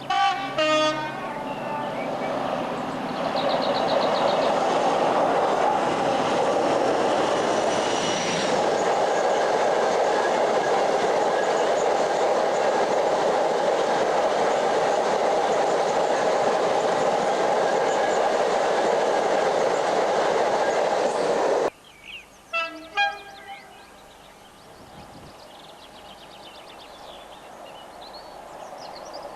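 A diesel locomotive horn sounds briefly, then a diesel-hauled freight train passes with a steady loud rumble of locomotive and wagons for about twenty seconds, cut off suddenly. Another short horn blast follows, more faintly.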